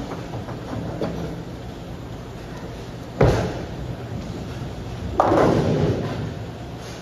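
A bowling ball delivered onto the lane, landing with a sharp thud about three seconds in, then about two seconds later crashing into the pins with a clatter of pins that dies away over about a second, on a spare attempt. A steady bowling-alley hum runs underneath.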